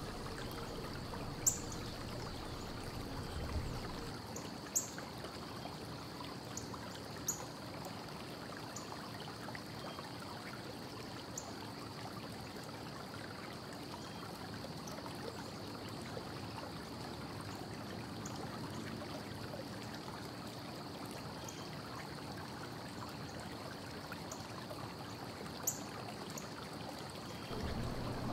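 Steady low background hiss with a faint high whine, broken by a few light clicks, louder ones about a second and a half in and around five, seven and twenty-six seconds in.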